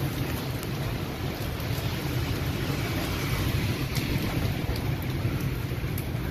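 Heavy rain pouring down steadily, with a low rumble beneath it and a few sharp drip ticks.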